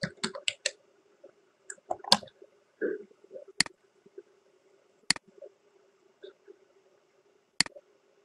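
Computer keyboard keys tapped in a quick run, then single sharp mouse clicks every second or two, over a faint steady hum.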